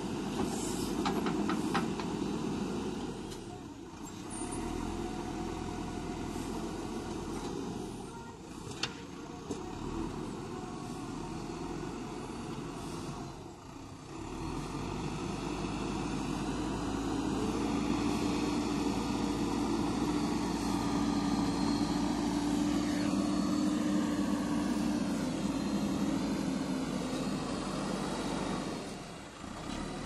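JCB 3DX backhoe loader's diesel engine running under working load, with a few sharp knocks in the first half. Its note steadies and strengthens through much of the second half as the machine drives over the soil mound.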